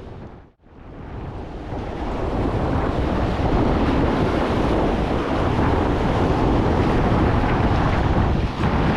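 Roar of whitewater rapids around a raft, mixed with wind buffeting the microphone. The sound drops out briefly just after the start, then builds over a couple of seconds and holds steady and loud.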